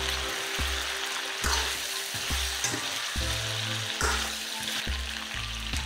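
Chicken pieces with chili paste and soy sauce sizzling in a wok as they are stir-fried until the sauce turns fragrant, with a few knocks of the spatula against the pan. Background music with a slow bass line plays underneath.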